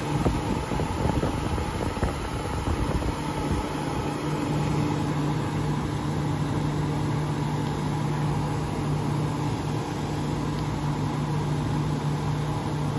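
1970 Signature 6,000 BTU window air conditioner running: a steady low hum under the even rush of its fan. A few light knocks and rustles in the first few seconds.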